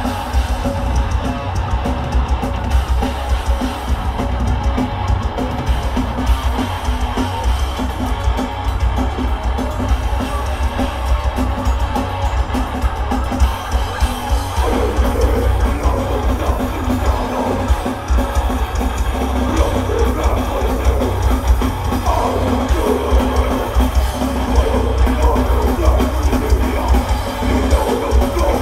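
A death metal band playing live: distorted guitars, bass guitar and fast drumming, loud and dense throughout. The sound thickens about halfway through.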